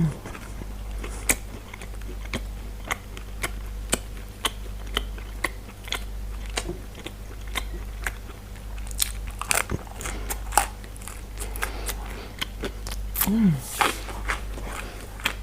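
Close-miked chewing and biting of food, with many small sharp mouth clicks and some crunching. About thirteen seconds in there is a short, low hum that falls in pitch.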